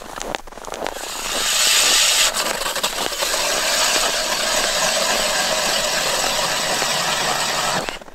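Power ice auger drilling a hole through lake ice: a steady motor-and-cutting noise that builds up about a second in, runs evenly, and stops abruptly shortly before the end.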